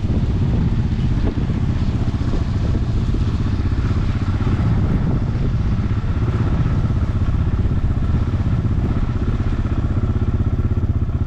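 Farm tractor engine running steadily at constant speed close by, with some light clatter over it.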